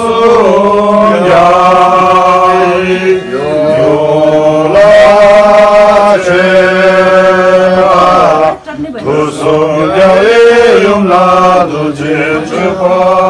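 Chanting voices holding long notes that step slowly up and down, with a brief break about eight and a half seconds in.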